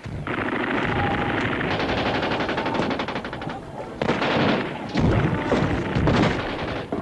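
Battlefield gunfire: machine guns firing in rapid continuous bursts, joined from about four seconds in by louder, heavier blasts.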